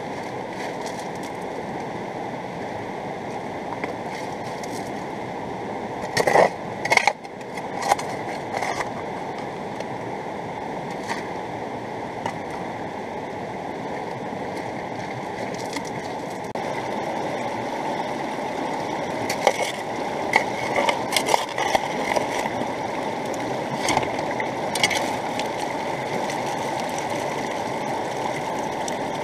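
Mountain river rushing steadily. Sharp clacks of stones and gravel knock against the small highbanker sluice as material is fed in, a few at about six to eight seconds in and more from about nineteen to twenty-five seconds.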